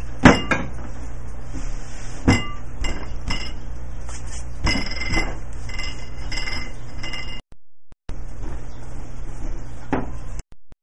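Kitchen utensils and dishes clinking: a handful of sharp clinks spread out, the loudest about a quarter-second in and a quick cluster near the middle, over a steady low hum.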